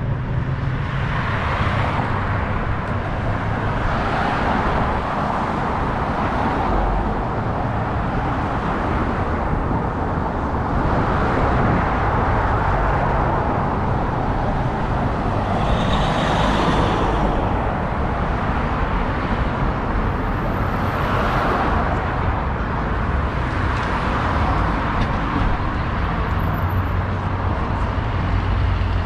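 Road traffic on a wide multi-lane street: cars passing one after another, their tyre and engine noise swelling and fading every few seconds. One louder passing vehicle stands out about sixteen seconds in.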